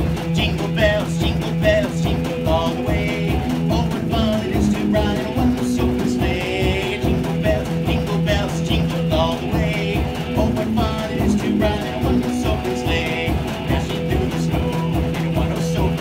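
Electric guitar playing a rock riff over the rhythmic thumping of a washing machine, whose even pulse keeps the beat, with a steady low hum underneath.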